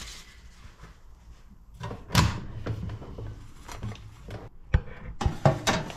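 Handling clunks of a metal cake tin holding a loaf, lifted off a wire cooling rack with an oven glove. There is one louder clunk about two seconds in, then a quick run of sharp knocks near the end.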